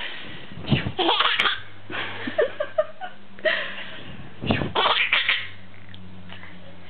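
Baby girl laughing in about four short fits of giggles, with pauses between them.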